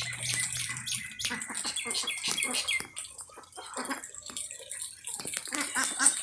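Farmyard poultry (chickens and ducks) calling in short clucks and chirps, with a quick run of calls near the end, over a steady hiss of rain.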